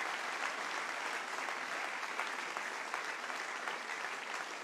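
Applause from an audience of several dozen people, many hands clapping together, easing off slightly near the end.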